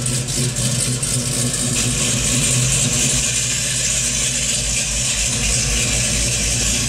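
LS3 6.2-litre V8 in a 1968 Chevrolet Camaro running steadily at low revs while the car reverses slowly under its own power.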